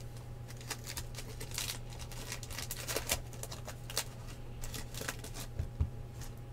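Trading cards and pack wrappers being handled: a run of light, irregular rustles and clicks, over a steady low hum.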